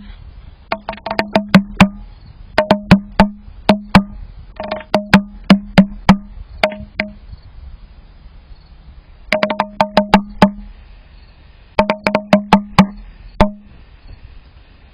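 Red-bellied woodpecker pecking hard at a bird-feeder camera: rapid volleys of sharp, ringing knocks, about five bursts broken by short pauses and one longer pause midway.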